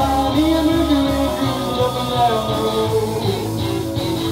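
Live band music: electric guitar and upright bass playing a rock-and-roll blues number, with a man singing.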